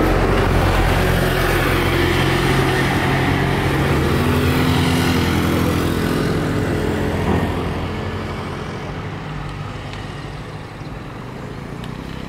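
Motor vehicle engine running close by, loud for the first half and fading away from about eight seconds in, as of a vehicle passing on the road.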